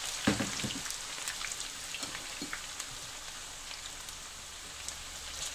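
Freshly added raw potato wedges frying in hot oil in a nonstick pan: a steady sizzling hiss dotted with small pops and crackles. A brief knock comes just after the start.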